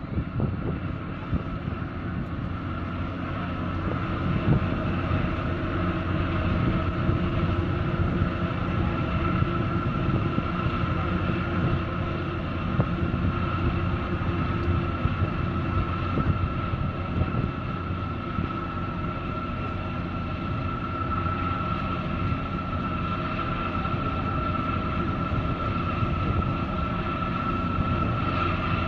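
Steady diesel engine drone of a harbour tug and a large container ship passing close by, a low rumble with a steady high whine on top, growing gradually louder as the vessels come nearer.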